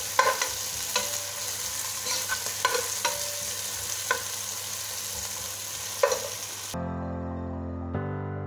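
Sliced onion sizzling in hot oil while a plastic spatula stirs and scrapes it around a steel pot, with a few sharp ticks from the spatula. About six and a half seconds in, the sizzle cuts off and background music begins.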